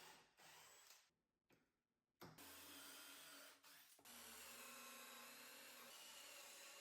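Faint drill running twice, boring pocket holes into a wooden shelf: a short run about two seconds in, then a longer steady run from about four seconds.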